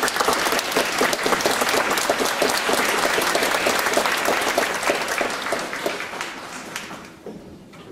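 Audience applauding, steady at first and dying away near the end as the conductor reaches the podium.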